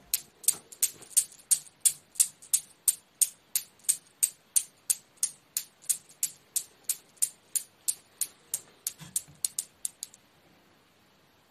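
Homemade Newton's cradle of steel balls on a wooden frame clicking as the end balls swing and strike the row, about three sharp clicks a second, growing fainter. The clicks stop suddenly about ten seconds in, when the balls are caught by hand.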